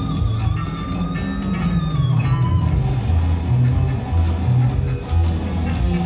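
Live rock music through a PA: an electric guitar plays a sustained lead line that bends in pitch, over a heavy bass.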